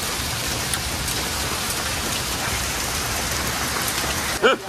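Heavy summer cloudburst: a steady hiss of downpour pelting a paved courtyard, with a brief voice near the end.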